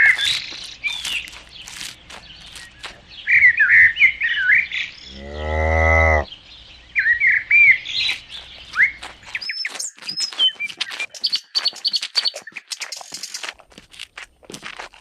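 Small birds chirping and tweeting, with a single cow moo lasting about a second around five seconds in.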